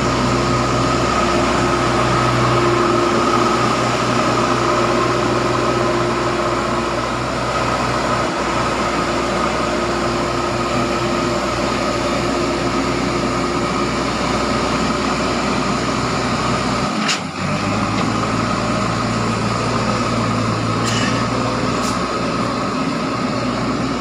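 JCB backhoe loader's diesel engine running steadily at close range, with a steady whine over the engine hum. The sound briefly drops out about 17 seconds in, then carries on.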